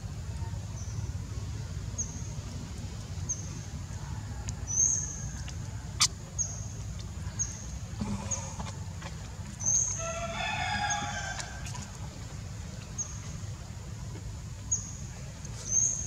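Outdoor ambience: a steady low rumble under short high chirps that repeat about once a second, a sharp click about six seconds in, and one long drawn-out animal call, crowing-like, about ten seconds in.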